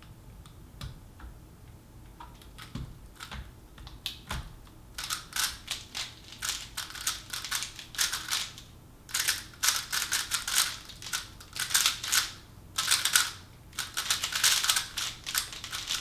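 Plastic 3x3 speedcube being turned fast during a timed solve: rapid clicking and clacking in quick runs broken by short pauses. A few faint clicks come first, and the fast turning starts about five seconds in.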